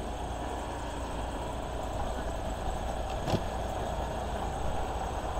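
Truck engine idling steadily while warming up, with a single brief click about three seconds in.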